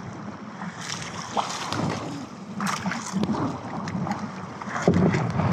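Wind buffeting the microphone and choppy sea washing against a small outrigger fishing boat, with a few sharp knocks, the loudest near the end.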